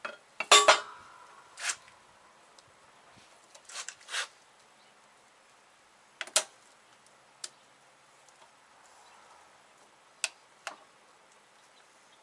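Circlip pliers clinking and clicking against a VW wheel-bearing spindle while working the bearing's retaining circlip out. A pair of sharp metallic clanks just over half a second in, one left ringing briefly, is the loudest; scattered single clicks follow every second or two.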